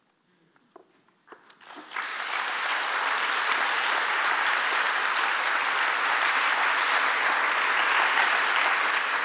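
An audience applauding. After about two seconds of near quiet, the clapping starts and runs on steadily.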